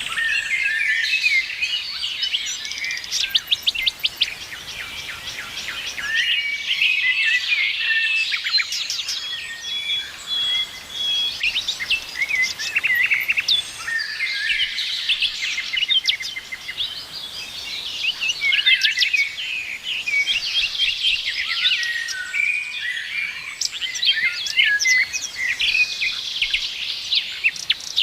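Many songbirds chirping and singing together: a dense, continuous chorus of quick chirps, trills and rapid clicking notes.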